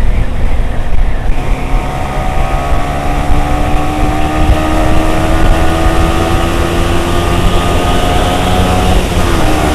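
Yamaha R15 V3's single-cylinder engine pulling under acceleration, its pitch rising slowly for several seconds and then falling back briefly near the end, over a heavy rush of wind noise.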